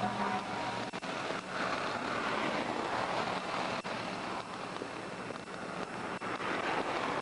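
Highway traffic going past: a rushing tyre-and-engine noise that swells twice as vehicles pass, with wind noise on the microphone.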